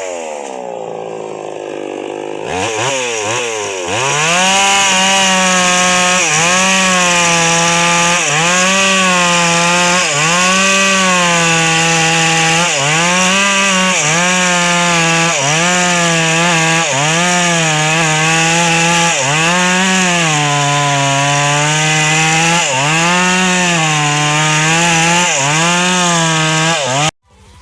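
Two-stroke chainsaw with a 22-inch bar, dropping to a low idle at first and then revved up to full throttle a few seconds in. It cuts wood with a steady rhythmic sag in pitch about every second or so as the chain bites under load. The sound stops abruptly near the end.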